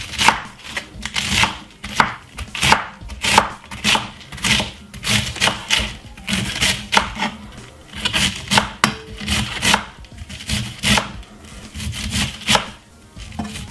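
Knife chopping cabbage finely on a cutting board: a long, irregular run of quick strokes, a few a second, with short pauses between runs.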